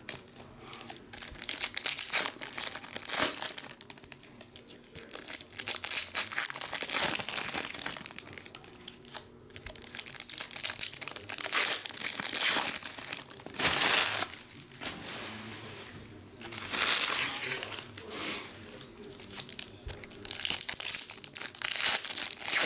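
Foil wrappers of Upper Deck hockey card packs being torn open and crinkled by hand, in irregular bursts of crackling with short quieter gaps between.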